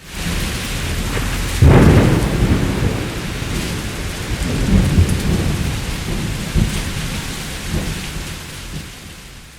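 Thunderclap over steady rain: a sudden loud crack nearly two seconds in, then rolling rumbles that swell again a few times and fade away near the end.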